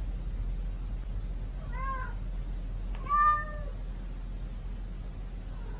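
House cat meowing: a short meow about two seconds in, then a louder, longer drawn-out meow just after three seconds that sounds like "nooo", with another meow starting at the very end.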